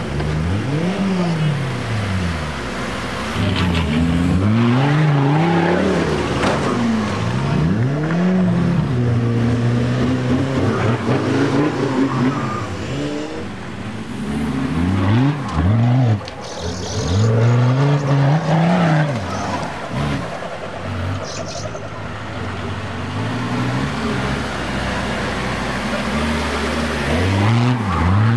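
Off-road 4x4's engine revving hard, its pitch climbing and dropping back over and over as the throttle is worked.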